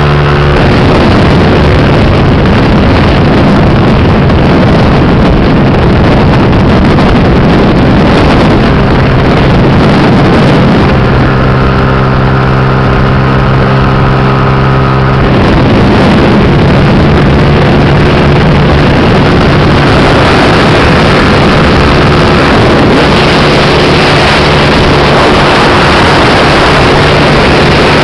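A 125–150 cc scooter engine running at speed, with heavy wind noise on the microphone. The engine note holds steady and shows up most clearly for a few seconds in the middle and again near the end.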